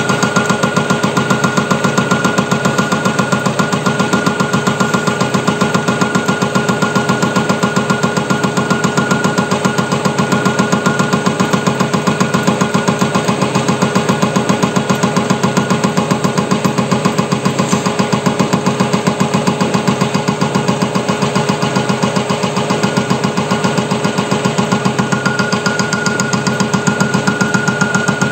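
WM210V benchtop metal lathe running under power, its chuck spinning against a carbide-insert cutting tool. It makes a steady whine with a fast, even pulsing.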